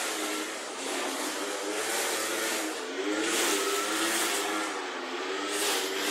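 Brush cutter engine running steadily as it clears grass, with a constant hiss and an engine note that wavers up and down with the throttle.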